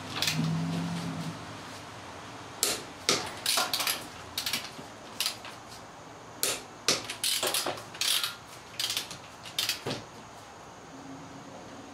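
Torque wrench ratcheting on a car's wheel lug nuts: clusters of sharp ratchet clicks as the handle is swung back and forth, tightening the lugs toward 80 foot-pounds.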